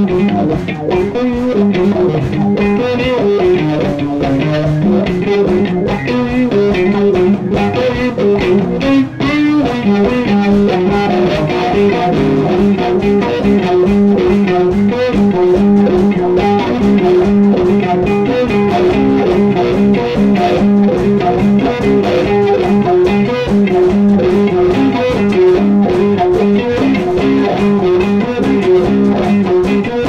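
Electric guitar music, a continuous instrumental piece with long held notes over a dense, steady texture.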